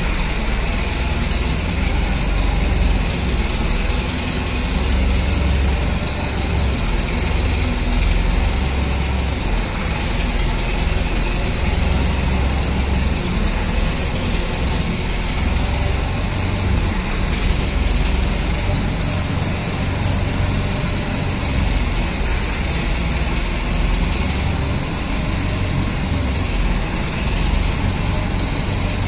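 An engine running steadily with a deep low rumble.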